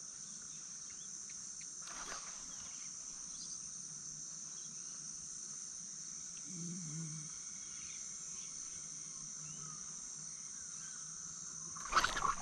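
Steady high-pitched chorus of insects from the riverbank vegetation. Near the end a sudden loud burst of noise breaks in as a fish strikes the lure.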